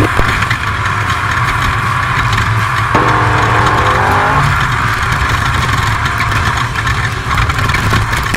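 Off-road race truck's engine running hard over a steady rush of road and wind noise. It revs up, rising in pitch, about three seconds in.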